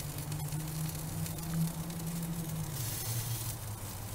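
Halved artichokes sizzling on a charcoal grill, a steady hiss that swells briefly about three seconds in. Under it runs a steady low hum that drops in pitch near the three-second mark.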